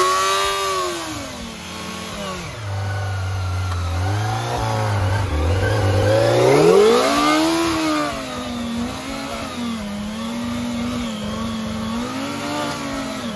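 Kawasaki Ninja ZX-25R's inline-four engine revving under load on a steep dirt climb. It runs high at first and falls to a low steady run, then revs up again about six seconds in and holds high revs with small rises and dips.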